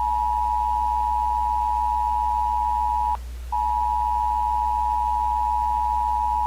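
Emergency-broadcast attention signal: a steady two-tone beep held for about three seconds, breaking off briefly, then sounding again for about three seconds more, over a low steady hum.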